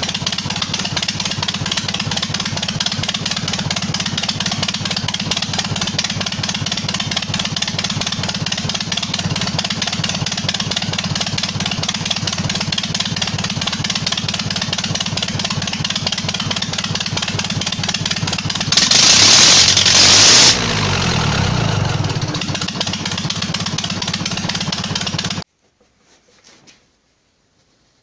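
Zetor 6245 tractor's diesel engine running steadily with its manifold removed. About two-thirds through, a loud hiss lasts a second or two and the engine note then falls. The sound stops abruptly a few seconds before the end.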